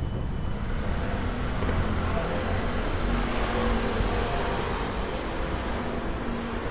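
Road traffic noise: a steady low rumble with a hiss that swells for a few seconds in the middle and eases off near the end.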